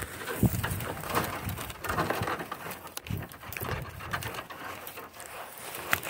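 Dry grapevine canes and old trellis wire rustling and scraping as they are worked with long-handled cutters, with scattered clicks and one sharper click near the end.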